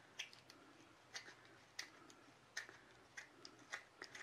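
Hand deburring tool's swivel blade scraping along the sharp edge of a cured epoxy resin piece, giving faint, sharp little clicks and scrapes at an irregular pace, two or three a second, as it shaves off flakes from the shrinkage ridge.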